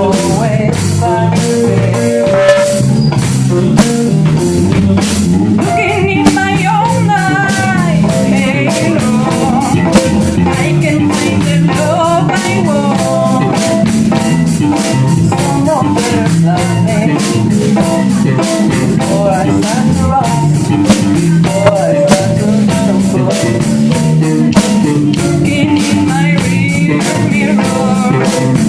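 A rock band playing, with a drum kit keeping a steady beat under bass and electric guitar, and bending melodic lines above.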